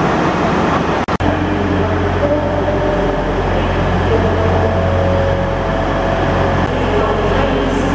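LNER Class 43 HST diesel power car idling at the platform: a steady low engine hum with several held higher tones over it. It breaks off for an instant about a second in.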